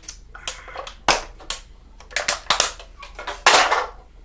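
A just-emptied aluminium beer can being crushed and crumpled by hand: a run of sharp crackles and crinkles, with the loudest crunch near the end.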